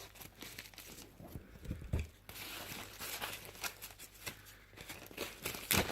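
A mailing package being cut and torn open: the packaging crinkles and rasps as it rips over a couple of seconds, with scattered small clicks and a sharper snap near the end.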